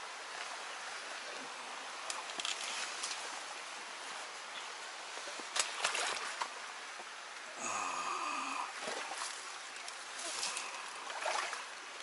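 Steady hiss of a flowing stream, with scattered rustles and clicks and a brief high-pitched squeal about two-thirds of the way through.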